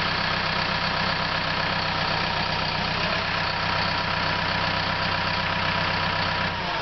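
CAT D4K dozer's diesel engine running steadily at idle, its low note dropping away near the end.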